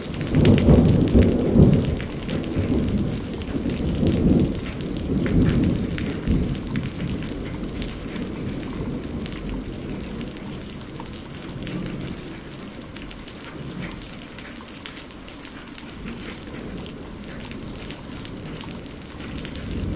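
Steady rain falling with rolling thunder. Loud low rumbles fill the first few seconds, then die down to the rain's patter, and another rumble builds near the end.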